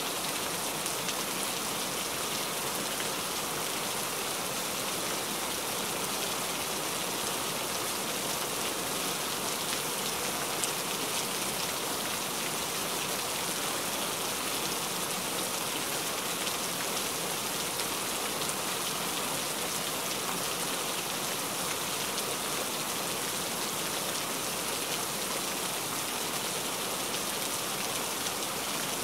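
Heavy rain falling steadily: an even, unbroken hiss that stays at the same level throughout.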